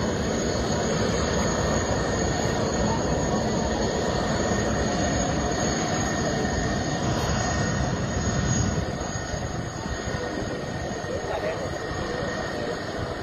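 Airbus A330's twin jet engines at takeoff thrust on the takeoff roll: a steady, loud rush of engine noise with a faint high whine, easing a little about nine seconds in.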